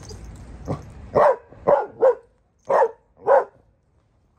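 Adolescent Belgian Malinois barking, five sharp barks in a little over two seconds, starting about a second in.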